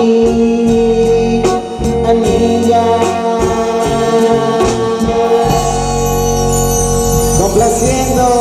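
Live band playing the closing bars of a song: long held notes over bass and drum hits, with electric guitar. Cymbals crash and wash from about halfway through.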